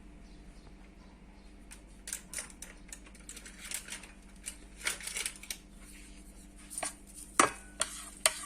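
Kitchen handling at a saucepan holding water, olive oil, garlic and herbs: scattered light clicks, taps and scrapes, with a few sharper knocks near the end.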